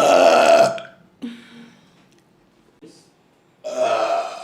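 A woman burping loudly twice: a long burp of nearly a second at the start, and a second one about three and a half seconds later, with a short, fainter sound between them.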